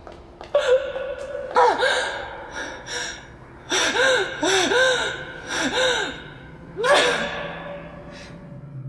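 A woman gasping and crying out in distress: a string of short, strained vocal gasps whose pitch rises and falls, the busiest run near the middle.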